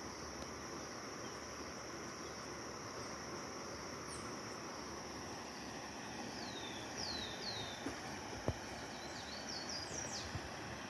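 Steady high-pitched insect chorus, with a few short falling bird chirps in the second half and a single sharp click about eight and a half seconds in.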